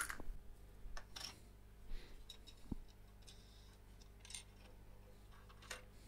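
Small hardware being handled by hand: a sharp click at the start as a plastic cup of screws is reached into, then scattered faint clicks and light scrapes of metal parts being worked on a 3D printer's bed carriage.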